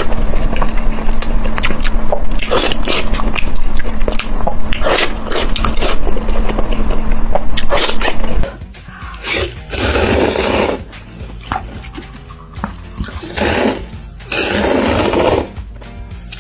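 Close-miked eating sounds: wet chewing and mouth smacks with many sharp clicks. After a cut, two long, loud slurps of noodles come, one near the middle and one near the end.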